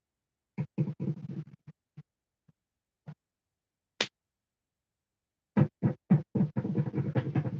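Choppy, stuttering music-like sound in short bursts, like record scratching, broken by scattered clicks and one sharp click about four seconds in.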